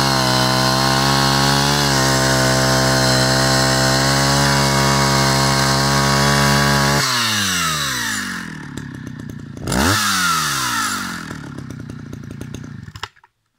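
Vintage Husqvarna 65 two-stroke chainsaw running at full throttle, steady in pitch, as it saws through a log. About seven seconds in the throttle is released and the revs fall. Near ten seconds it gets one quick blip of throttle, drops back to idle, and the engine cuts out suddenly near the end.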